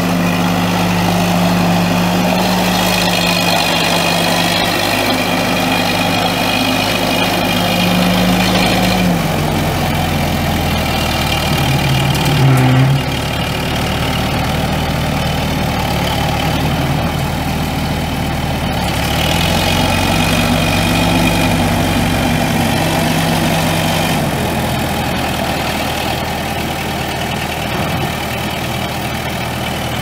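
A New Holland 445T/M2 4.5-litre four-cylinder turbo diesel in a 2001 New Holland LB75B backhoe running. Its speed drops about nine seconds in, rises again around twenty seconds and drops back near twenty-four seconds, with a whine over the engine while it runs faster.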